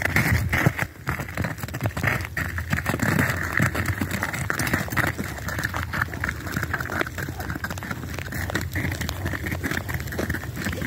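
Steady crunching and crackling of footsteps on icy, crusted snow, made up of many small crisp clicks, a little louder in the first second.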